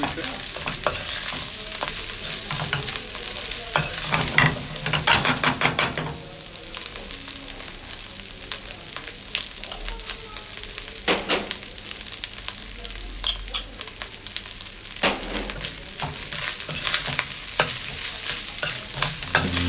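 Rice sizzling as it stir-fries in a hot steel wok, with a metal spoon scraping and clicking against the pan as it is turned. A quick run of taps comes about five seconds in.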